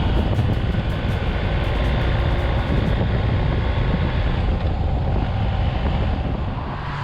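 BMW R 1250 GS Adventure's boxer-twin engine running at road speed, mixed with steady wind rush over the microphone. The noise eases a little near the end.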